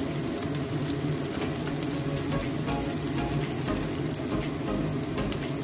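Shrimp-stuffed tofu (tahu walik) sizzling steadily with fine crackles as it shallow-fries in a little oil in a nonstick pan over low to medium heat. The crust has gone fairly dry and crisp, and the pieces are nearly done.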